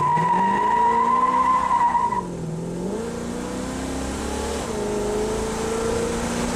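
1969 Pontiac GTO's 400 V8 accelerating hard from a launch, the tires squealing for about the first two seconds before the squeal cuts off. The engine note rises, drops at an upshift about two and a half seconds in, climbs again and shifts once more near the end.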